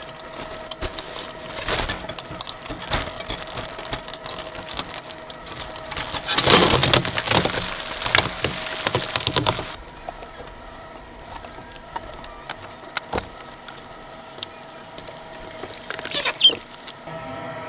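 Shredder running with scattered cracks and snaps, then a dense stretch of crunching and splintering for about three seconds in the middle as it chews through material.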